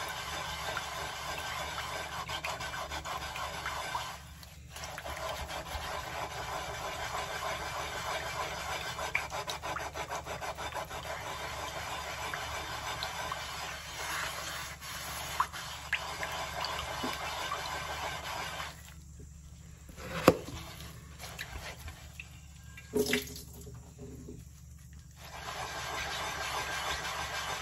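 Scrubbing sponge rubbing round the inside of a wet unglazed clay pan in steady strokes, with water swishing, working at stuck-on food residue. The scrubbing pauses briefly about four seconds in and for several seconds after about nineteen seconds. Two sharp knocks fall in that pause, and then the scrubbing starts again near the end.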